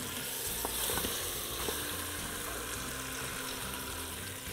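Chicken breasts sizzling steadily as they sear in hot butter and oil in an Instant Pot's stainless inner pot on the sauté setting. A few light taps of a wooden spoon against the pot come in the first two seconds.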